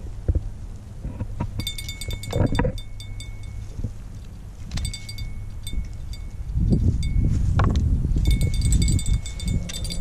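Rapid metallic clicking with a bright ringing tone, in three bursts, with a few dull knocks; a heavier low rumble of handling or wind joins about two-thirds of the way through.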